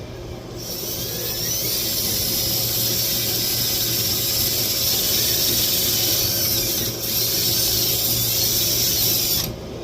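A handheld power tool spinning against steel, cleaning the metal bare before welding. It starts about half a second in, runs steadily with a short dip near seven seconds, and stops just before the end.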